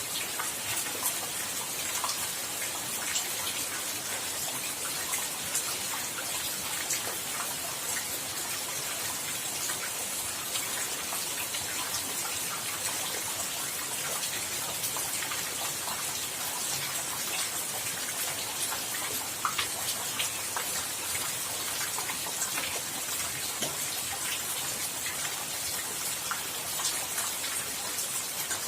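Steady rain falling, with many individual drops ticking sharply against a constant hiss.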